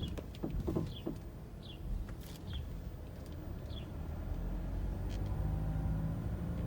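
A few clunks from a 2017 Mazda CX-9's suspension about half a second to a second in, a knocking noise that has persisted after a new lower control arm. Then the vehicle's running noise builds from about four seconds in, with birds chirping over it.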